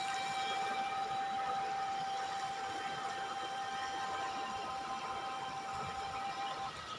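Steady rushing noise of a river in spate, fast brown floodwater surging over the flooded ground. A faint steady high whine runs alongside and stops shortly before the end.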